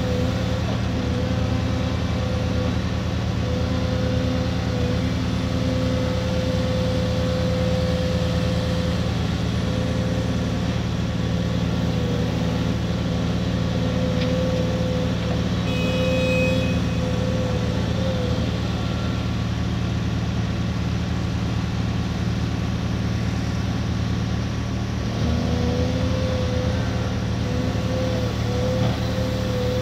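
Diesel engines of a Caterpillar 340D hydraulic excavator and the dump truck it is loading, running steadily with a deep hum. A whining tone comes and goes as the excavator works.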